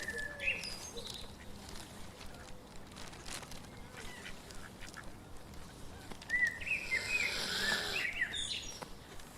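Birds calling: a few short calls just after the start, then a denser cluster of calls from about six to eight and a half seconds in.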